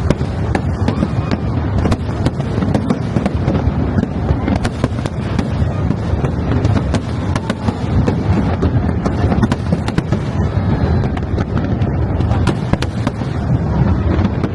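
Aerial fireworks bursting in a dense, continuous barrage: many sharp cracks in quick succession over a steady low rumble.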